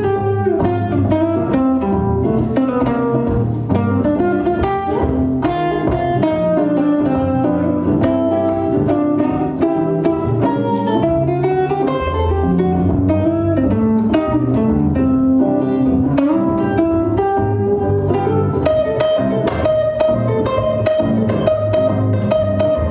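Jazz guitar playing a plucked instrumental passage, a moving line of notes over chords.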